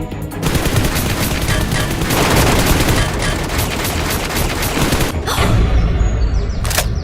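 Rapid gunfire sound effects in long bursts over background music, thinning out about five seconds in.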